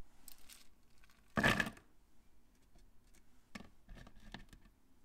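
A short rattling clatter about one and a half seconds in, then a few light clicks as fingers pick through small plastic Plus-Plus building pieces on a tabletop.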